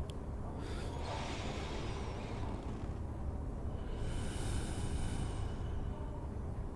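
Ambience track: a steady low rumble with two soft swishing sounds, about a second in and again about four seconds in.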